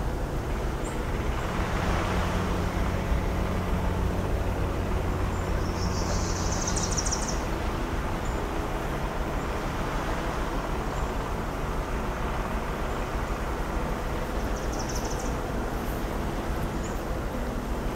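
A distant foghorn sounding one long, low blast that starts about a second and a half in and lasts about five seconds, over a steady wash of surf. Short high bird chirps come twice, around six seconds in and again near fifteen seconds.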